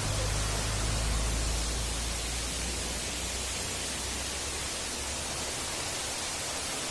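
Steady rushing of a waterfall. A low rumble underneath fades away over the first few seconds.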